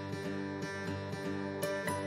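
Song accompaniment of strummed acoustic guitar chords in a short instrumental gap between sung lines.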